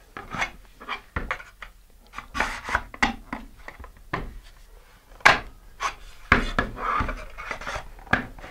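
Fiberglass fin being pushed and rotated into a slot in a fiberglass rocket body tube during a test fit: irregular scraping and rubbing with sharp clicks and knocks as the edges catch, the sharpest about five seconds in.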